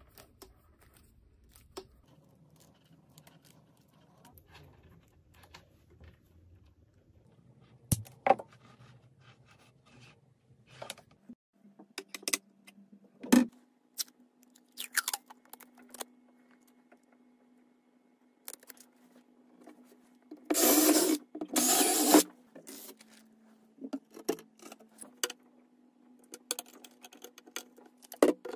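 Hand-work sounds: scattered clicks, taps and scrapes of small metal and plastic parts being handled. About three-quarters of the way through come two loud rasps close together, adhesive tape being pulled off its roll.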